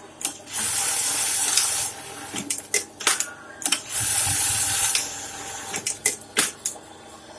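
Two bursts of hissing spray, each a second or more long, with a run of sharp clicks and taps between them.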